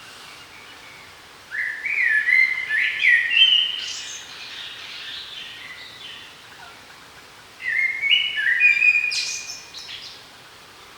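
A songbird singing two short phrases about six seconds apart. Each is a quick run of stepped notes that ends in a higher flourish.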